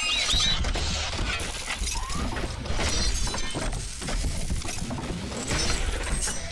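Sound effects for an animated logo intro: a dense, noisy crash packed with sharp clicks and rattles.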